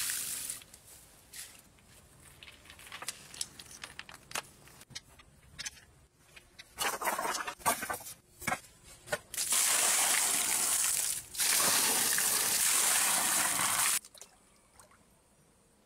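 Sand poured into a cement pond basin, then a run of sharp clacks as stones are knocked and set down. After that comes a loud rush of water lasting about four and a half seconds, with a brief break, that cuts off abruptly.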